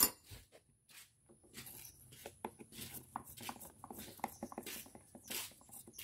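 Faint scattered clicks and small scrapes of a long screwdriver working a screw on a Honda Spacy scooter's front panel.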